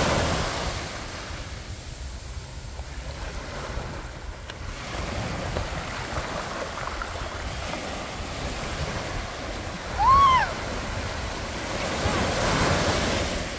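Small waves breaking on a sandy shore and washing up the beach, swelling louder at the start and again near the end as each wave breaks. About ten seconds in, a short high cry rises and falls.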